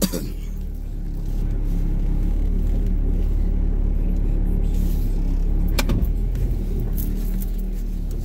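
Car driving, heard from inside the cabin: a steady low engine and road rumble. A single sharp click or tap comes about six seconds in.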